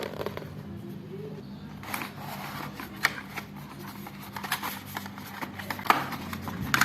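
Packaging being opened and handled to get at a new SATA SSD: scattered small clicks and short rustles, over a faint low steady hum.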